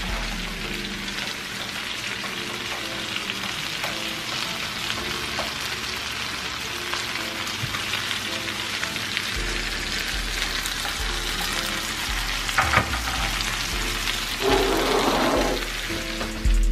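Two steaks searing in hot fat in a frying pan, sizzling steadily, with a short click and a brief louder spatter near the end.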